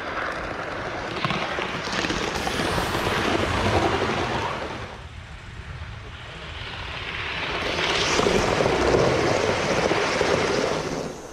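Gauge 1 model train running on garden railway track, a rushing rumble of wheels on rail that swells, fades about five seconds in, swells again, and cuts off suddenly near the end.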